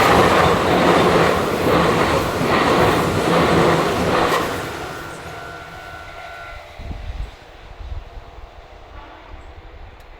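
Meitetsu electric train passing close by a level crossing, its wheels clacking over the rail joints, loud for the first four seconds or so and then fading away as it leaves. A steady level-crossing warning tone sounds under it and stops about six and a half seconds in.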